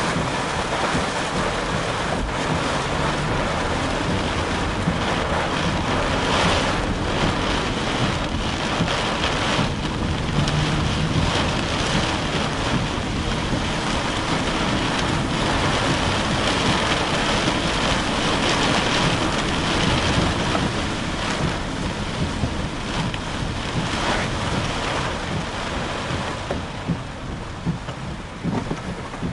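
Heavy rain and wind lashing a car, heard from inside the cabin: a dense, loud rush with frequent gusting surges, easing over the last couple of seconds.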